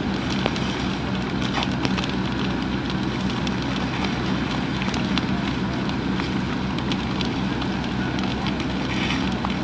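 Large wooden building fire burning hard, a steady rush full of sharp crackles and pops from the burning timber frame, over a steady low engine hum.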